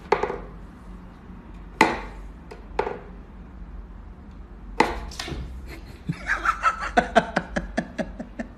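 Wooden whack-a-mole cat toy clacking as its wooden pegs are pushed, popping mice up through the holes, and the cat bats at them. A few separate knocks, then a quick run of about four or five knocks a second near the end.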